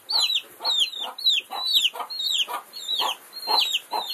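Young chicks cheeping: a steady run of high, downward-sliding peeps, about three a second.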